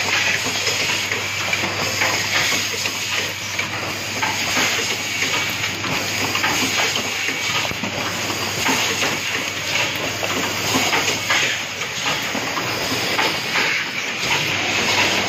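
Automated switch-assembly line machinery running steadily: a constant hiss over a low hum, with frequent small clicks and clatters.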